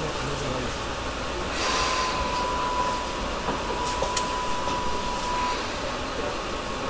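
Inside a Tobu 10000 series train standing at a station, with the air conditioning running steadily. About a second and a half in, a steady high tone sounds for about four seconds, and there are two sharp clicks near the middle.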